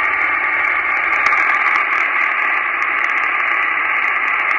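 Amateur radio transceiver on 10-metre upper sideband playing steady receiver hiss through its speaker, with no clear signal in it: band and atmospheric noise.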